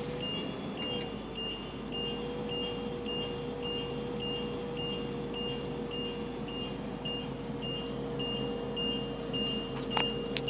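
An 8.1-litre Vortec V8 motorhome engine idling, heard from inside the cab. Over it, a high warning chime beeps steadily about two and a half times a second.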